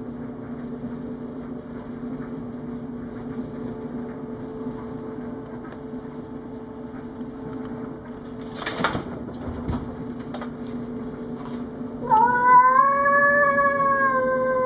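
Domestic cat's territorial standoff: a steady, low growl throughout, then about twelve seconds in a long, drawn-out yowl that wavers slightly in pitch, a threat at another cat. A single knock near the middle.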